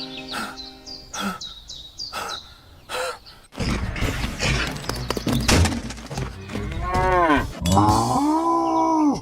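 Two long animal calls, each rising then falling in pitch, near the end, over a loud clattering noise that sets in about a third of the way through. Before that come quick high falling chirps.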